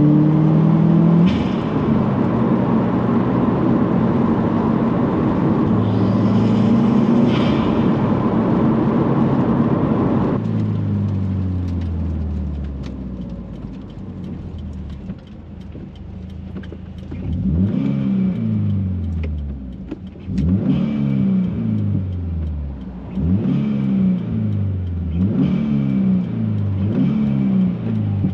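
2018 Subaru WRX's turbocharged flat-four pulling hard in third gear for about ten seconds, the engine note climbing, then easing off as the revs fall. Later comes a string of short light-throttle pulses about every two to three seconds, each rising and falling, with turbo hiss that sounds louder through the cast aluminum turbo inlet.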